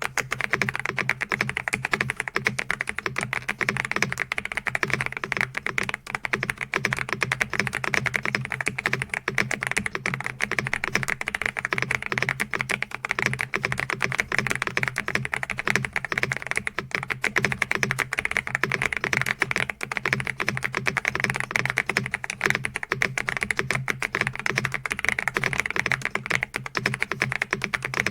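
Continuous fast typing on the AULA S98 Pro mechanical keyboard, a dense run of key clicks and clacks with no pauses.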